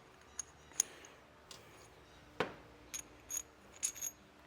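Metal differential parts being handled and compared, clinking and tapping against each other: a string of light, ringing metallic taps, with one louder clack about two and a half seconds in.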